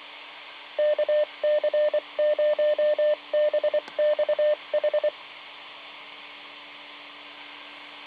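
Amateur radio repeater sending its Morse code identification, heard through a VHF FM mobile radio: one beep tone keyed in dots and dashes for about four seconds, starting just under a second in, over the steady hiss and low hum of the open receiver.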